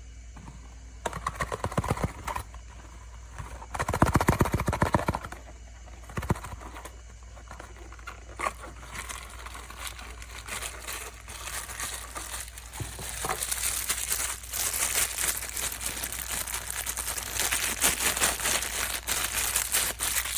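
Blind-box packaging wrapper being crinkled and torn open by hand, with bursts of rapid crackling about one and four seconds in, scattered clicks, then a denser crinkling that grows louder through the second half.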